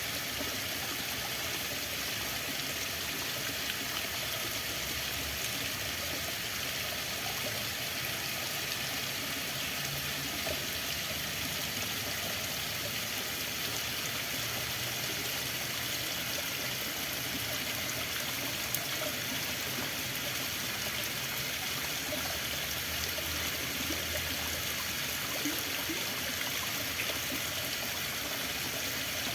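Running water flowing steadily, an even rushing sound.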